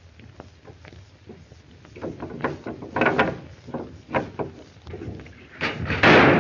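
Wooden bar on a cabin door being worked by hand: a run of wooden knocks, rattles and scrapes. A louder burst of noise comes near the end as the scuffle starts again.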